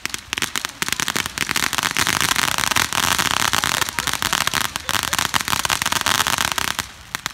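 Two Bombs Away firework fountains from Snake Bite Fireworks spraying sparks with a dense, rapid crackle of many small pops. The crackle stops about a second before the end, leaving a few last pops.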